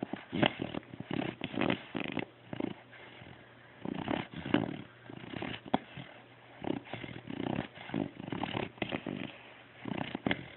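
Snoring: irregular, rattly breaths coming in clusters every second or two, with quieter pauses between.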